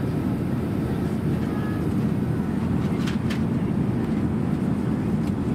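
Steady low rumble of Airbus A380 cabin noise in cruise, from engines and airflow. Two light clicks come about three seconds in.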